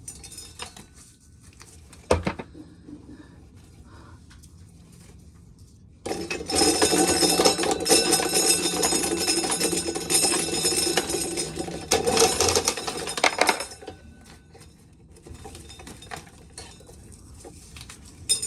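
Dried corn kernels clattering and rattling for about seven seconds, starting about six seconds in, as corn is shelled into a bucket. There is a single sharp knock about two seconds in.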